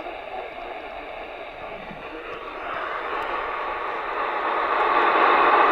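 Static hiss from a radio receiver tuned to a weak weather-radio signal, a steady rushing noise that grows louder from about two and a half seconds in.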